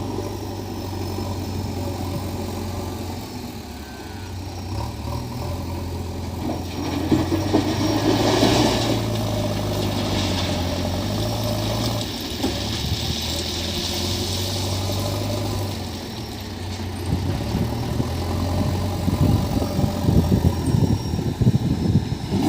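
JCB 3DX backhoe loader's diesel engine running under load, its pitch stepping up and down as the loader works, with irregular clatter building near the end as the bucket digs into ballast stone.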